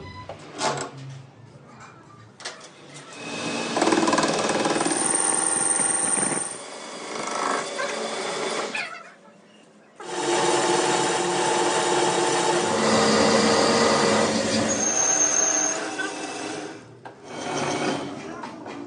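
Metalworking machinery running steadily in short edited sections. It drops out almost to silence around nine seconds in and starts again suddenly about a second later.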